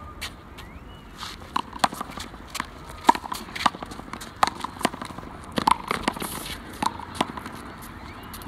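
One-wall handball rally: a rubber handball smacked by hand and hitting the concrete wall and court, a quick run of sharp hits with sneakers scuffing on the concrete, loudest about three seconds in.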